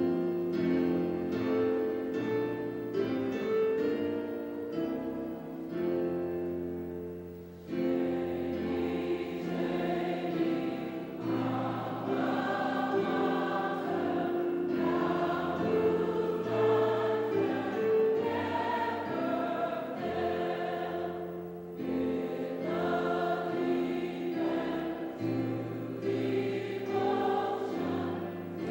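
A mixed choir singing a school alma mater with keyboard accompaniment. The keyboard plays the introduction alone, and the choir comes in about eight seconds in.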